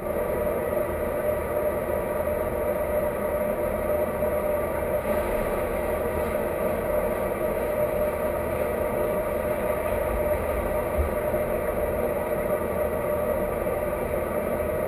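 Steady underwater hum and rush of a swimming pool, picked up by a submerged camera: a constant mechanical-sounding drone with a few held tones over a low rumble.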